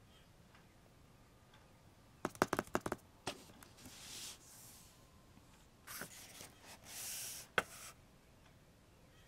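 A hardcover book being handled and opened: a quick run of light clicks about two seconds in, then the cover and pages swishing as it opens, with a sharp click near the end.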